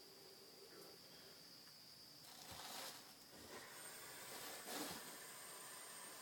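Faint breathy hiss swelling twice, about two and a half seconds in and again near five seconds: breath through a vape with a rebuilt 0.3-ohm coil, drawing or blowing out a cloud, over a steady faint high tone.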